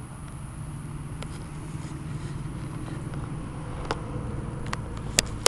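Camera handling noise as the camera is moved and set down: a steady low rumble with a few sharp clicks and knocks, the loudest near the end.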